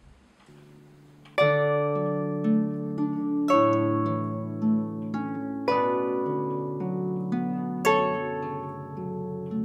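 Harp playing: a faint low note, then a full chord plucked about a second and a half in, followed by more plucked chords and single notes that ring on and fade between strokes.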